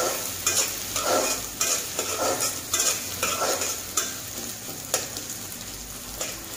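Cubed onions sizzling in hot oil in a metal karahi, stirred with a metal spatula that scrapes against the pan in repeated strokes. The strokes come about every half second at first and thin out after about four seconds, leaving mostly the sizzle.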